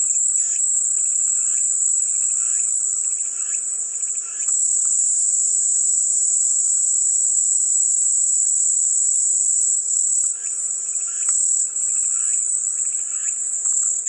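Cicadas buzzing in a steady, high, continuous drone. A second, lower pulsing call joins over the first four seconds and again from about ten seconds in.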